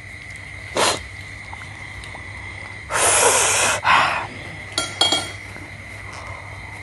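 Eating balut: loud slurps as the broth is sucked from the eggshell, a short one about a second in and a longer one about three seconds in, followed by a few light clinks of a spoon on eggshell or bowl.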